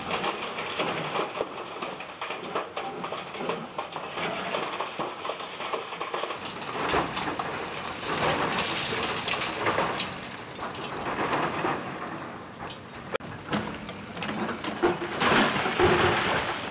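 Demolition excavator tearing apart a brick and concrete wall: masonry cracking and crumbling, with bricks and rubble clattering down in surges. The loudest surge comes near the end.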